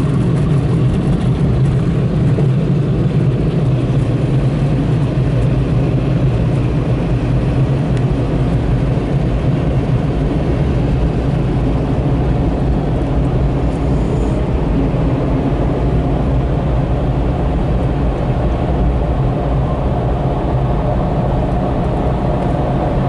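Drying blowers of a PDQ Laserwash 4000 touchless car wash running steadily, a constant low rush of air heard from inside the car's cabin.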